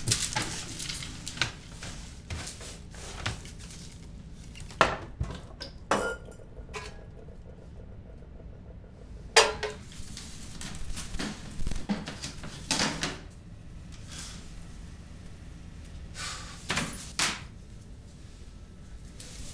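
Kitchen dishes, pans and cutlery clattering and wooden cupboard doors knocking as things are rummaged through: a run of irregular sharp clinks and knocks, a few of them ringing briefly, with quieter gaps between.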